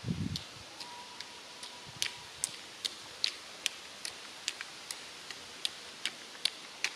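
Pole tips clicking on a gravel road with each pole plant, about two to three sharp clicks a second, getting louder toward the end as the strider comes closer. A brief low rumble at the very start.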